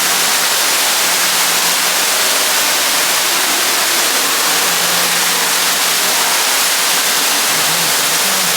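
Steady, loud rush of a waterfall, an even wash of noise that does not let up.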